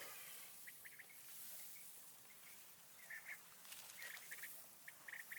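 Quail calling faintly: short, clipped, high notes in quick groups of two or three, repeated every second or so.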